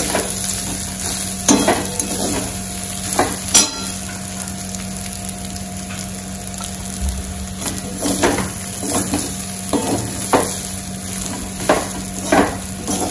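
Perforated steel ladle stirring and tossing rice with spice powder in a steel kadai over a lowered flame, with a steady gentle sizzle. The ladle knocks and scrapes against the pan about eight times.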